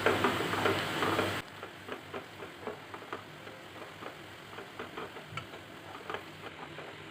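Sliced onions frying in hot oil in a kadai on full flame, crackling with irregular sharp ticks and pops as their water cooks off. The first second and a half is louder, with clicks over a low hum, and then it drops suddenly to the quieter crackle.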